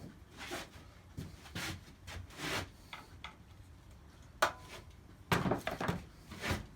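Hands rummaging and handling tools and parts: irregular scraping, rubbing and knocking in short bursts, with a sharp click about four and a half seconds in and a busier run of scrapes and knocks near the end.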